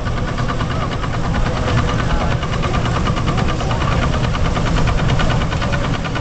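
Vintage tractor engine running steadily with a rapid, even knocking beat, belted to a threshing machine whose drum and shakers run under it as sheaves are fed in.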